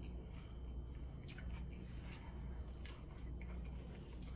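A person chewing a mouthful of chickpea salad sandwich on a soft brioche bun, with scattered soft wet clicks and squishes from the mouth and sandwich. A steady low hum runs underneath.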